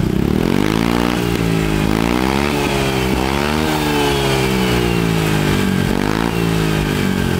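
Honda ADV scooter's single-cylinder engine revved through a newly fitted K'Race aftermarket racing exhaust. The pitch climbs and falls with several throttle blips, one long rise to a peak about halfway through, then a slow fall and a shorter blip near the end.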